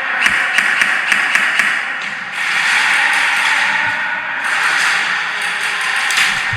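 Airsoft guns firing during an indoor close-quarters game: a quick run of sharp cracking shots in the first second and a half and a few more near the end, over a steady hiss.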